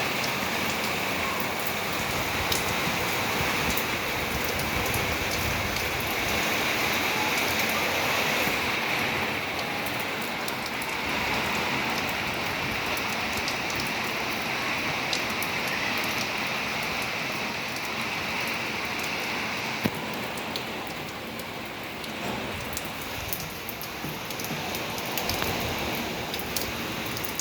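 Heavy rain falling steadily, a constant hiss with many individual drops pattering on nearby surfaces and one sharper knock about two-thirds of the way through.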